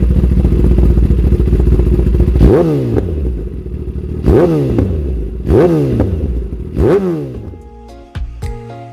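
Kawasaki Ninja ZX-4R's 400 cc inline-four engine running steadily, then blipped four times, each rev rising sharply and dropping back. Music comes in near the end.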